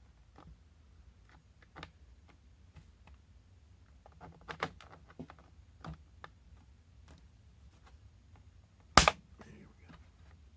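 Small screwdriver prying at a laptop's plastic case: scattered light clicks and ticks, then one loud sharp snap about nine seconds in as a case clip pops loose.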